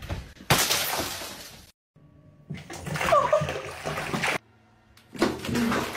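Bathwater splashing and sloshing as a soaked cat thrashes in a tub, in three stretches that stop abruptly.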